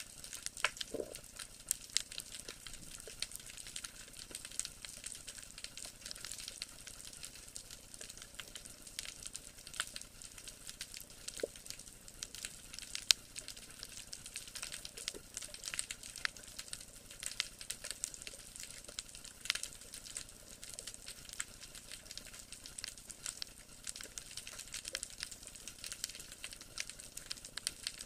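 Underwater ambience picked up by a submerged camera: a dense, steady crackle of tiny clicks on a rocky seabed, with a few brief faint low blips about a second in.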